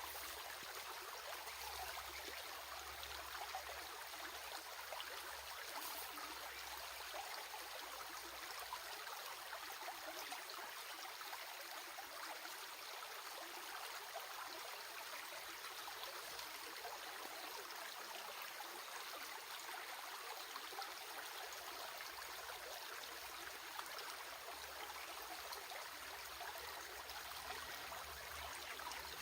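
Stream of water running and trickling steadily, a continuous even rush.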